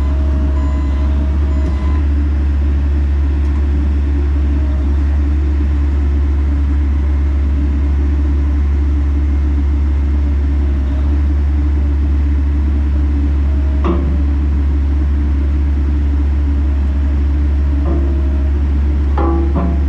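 Bobcat E85 compact excavator's diesel engine running steadily with a deep, even drone, with a few faint knocks in the second half.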